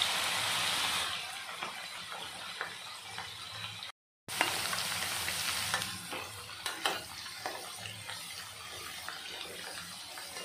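Potato fingers deep-frying in hot oil: a steady sizzle with crackles and light clicks as a perforated steel slotted spoon stirs them in the pan. The sizzle is loudest at the start, breaks off for a moment about four seconds in, then comes back loud and settles again.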